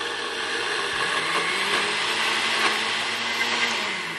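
Countertop blender motor running, grinding soaked urad dal dry in a glass jar before any water is added. The motor runs steadily and winds down near the end.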